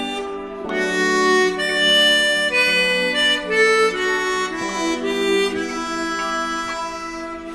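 Harmonica playing a slow melody of held notes, with a short break just after the start.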